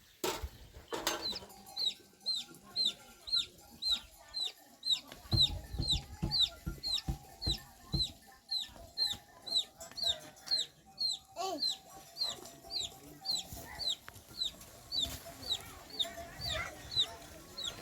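A chick peeping over and over, a short high falling peep about two to three times a second, with scattered low thumps underneath.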